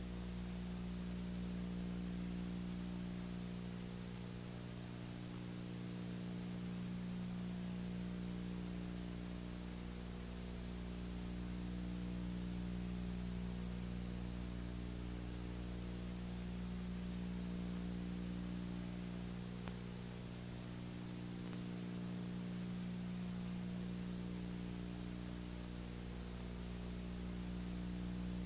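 Steady electrical hum with an even hiss behind it, swelling and easing slightly every few seconds; no boat or engine sound is heard.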